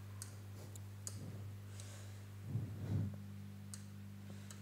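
A few faint, scattered clicks of a pen tapping on an interactive display screen, over a steady low hum.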